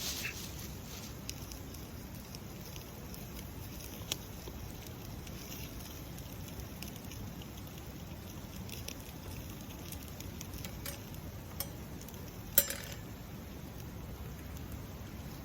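Campfire burning, with scattered small crackles and one sharper pop near the end over a steady low rumble.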